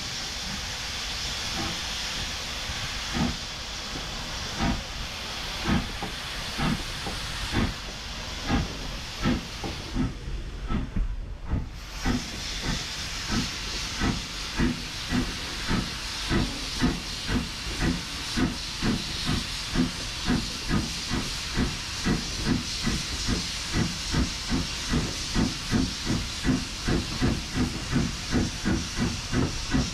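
0-6-0 saddle-tank steam locomotive pulling away with a train, its exhaust chuffing in beats that quicken steadily from about one a second to about two a second as it gathers speed, over a steady hiss of steam.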